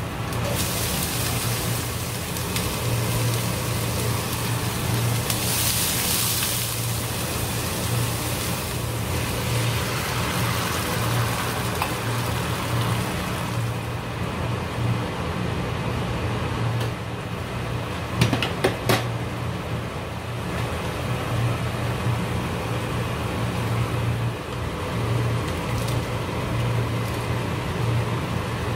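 Garlic, onion and scallion sizzling in oil in a frying pan, then a tomato sauce bubbling as it is stirred with a spatula, the sizzle dying down partway through. A steady low hum runs under it, and a few sharp clicks of the spatula against the pan come about two-thirds of the way in.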